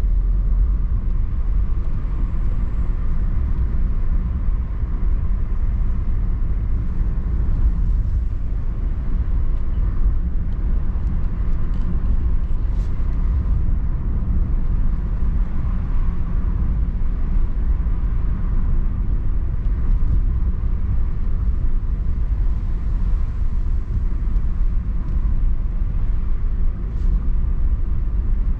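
Steady low rumble of road and engine noise inside a Suzuki car's cabin as it drives along, with two faint clicks, one about halfway through and one near the end.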